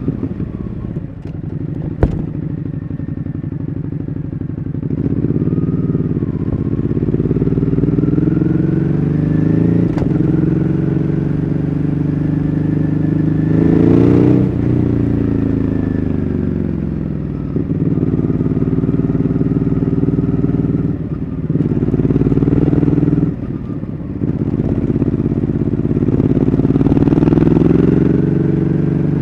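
Ducati Hyperstrada's 821 cc L-twin engine under way, the revs rising and falling repeatedly as the bike accelerates and slows. The pitch climbs to a peak near the middle and then falls. In the later part the revs drop sharply twice, close together, before climbing again near the end. A single sharp click comes about two seconds in.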